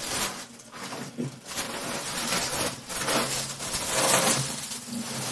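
Clear plastic wrapping crinkling and rustling as it is pulled and bunched off a rolled mattress, loudest about four seconds in.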